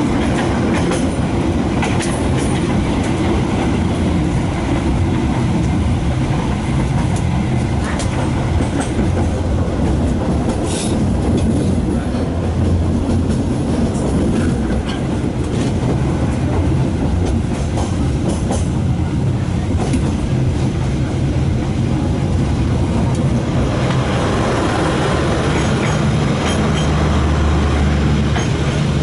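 Kereta Api Indonesia passenger train running along the track, heard from inside the carriage: a steady low rumble with scattered clicks of the wheels over rail joints. About three-quarters of the way through, the rumble grows louder and harsher.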